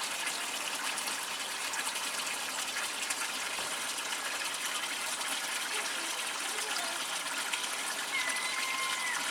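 A steady rushing hiss, with a gull chick's thin, drawn-out whistling call near the end.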